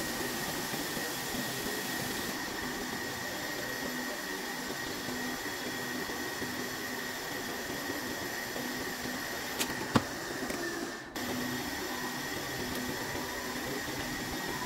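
Vertical milling machine running, its end mill cutting a pocket into a metal block held in a vise, a steady machining noise with a high whine. One sharp click about ten seconds in, and the sound dips briefly just after it.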